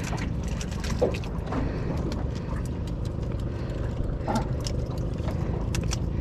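A boat engine running steadily at a low hum, with scattered clicks and knocks of gear being handled on board.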